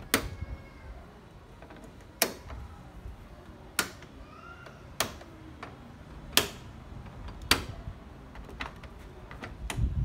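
Sharp metallic clicks of a wrench being fitted, turned and repositioned on the grille's fastening bolts: six distinct clicks spaced one to two seconds apart, with lighter ticks near the end.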